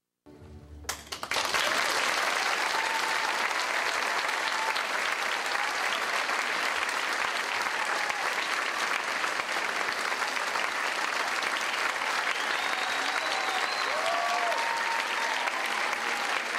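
Audience applauding, building within about a second to steady, dense applause, with a few voices calling out over it.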